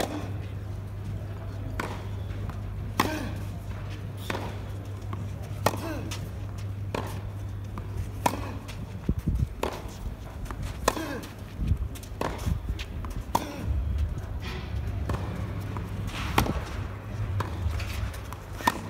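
Tennis rally: a dozen or so sharp racket strikes on the ball, evenly spaced a little over a second apart as the two players trade groundstrokes.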